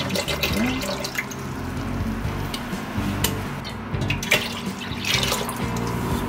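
Liquid poured into a stainless-steel stockpot, splashing and trickling: first a small bottle of ssanghwatang herbal tonic, then water from a smaller steel pot.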